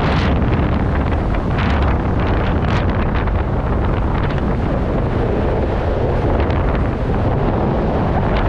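Strong wind buffeting a camera microphone: a loud, steady rush with low rumble that doesn't let up, as in skydiving freefall.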